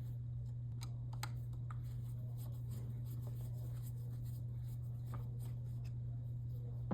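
Faint clicks and light scraping from a screwdriver backing screws out of the metal end of a light fixture, over a steady low hum.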